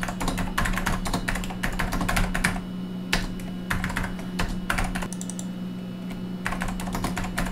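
Typing on a NeXT computer keyboard: quick runs of key clicks in bursts, with a pause of about a second and a half a little past the middle.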